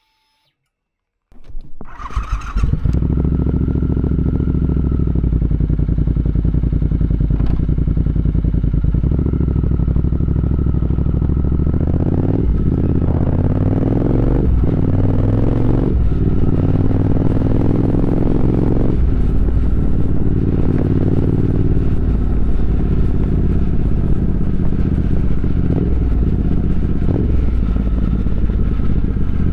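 Triumph Speed Twin 1200's parallel-twin engine started with a brief crank about a second and a half in, then idling steadily. The revs rise and fall briefly about four times near the middle.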